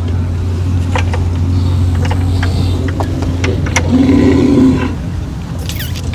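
A steady low engine hum, with a few knocks and a short, low call from a bull about four seconds in.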